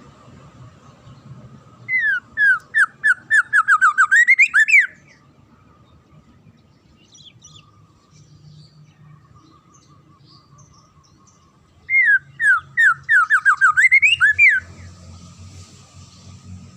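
A songbird's phrase of about a dozen quick down-slurred whistled notes, speeding up and ending on a rising note, played twice about ten seconds apart and identical each time, as from a looped bird-song training recording. A faint steady whistle-like tone runs underneath.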